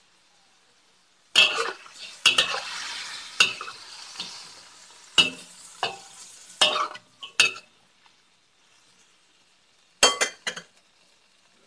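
Spatula scraping and clanking in a wok as duck pieces with mushrooms and radish are stir-fried, with sizzling between strokes. The strokes come in a run from about a second in to about seven and a half seconds, then two more near ten seconds.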